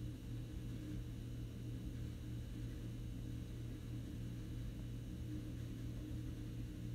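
Industrial overlock (serger) machine running with a steady low hum.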